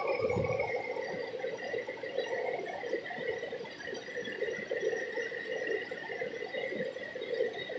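Air drawn from the radiator bubbling through the test fluid of a combustion leak block tester as its suction bulb is worked, checking the coolant for combustion gases from a blown head gasket. A steady high thin tone runs underneath.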